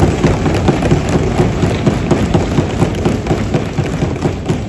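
Many assembly members rapidly thumping their desks, a dense patter of thuds, in approval and encouragement for a speaker to go ahead; it tails off near the end.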